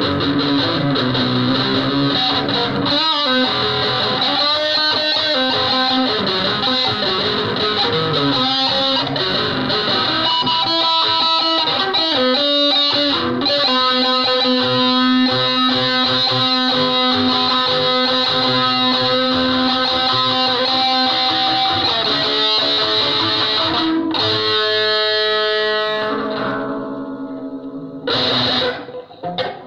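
Electric guitar played through distortion, sustained notes and bends ringing on. About 26 seconds in the sound thins and drops away, then comes back briefly near the end.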